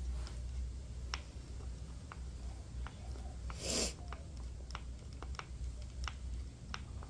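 A hand screwdriver driving a wood screw into a pine board, with light irregular clicks as the handle is turned and regripped, over a low steady hum. About halfway through there is one short breathy hiss, the loudest sound here.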